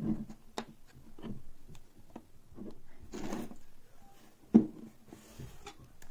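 Handling noise from a 3D-printed plastic case: scattered clicks and knocks with a short scraping rustle, then one sharp loud knock a little past the middle as the case is set down on the cutting mat.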